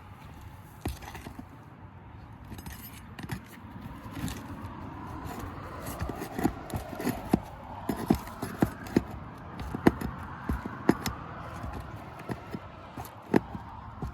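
Shingles being pried up and unsealed with a tool, scraping with many irregular sharp clicks and taps that come thickest in the middle, as the seal is broken to reach the nails.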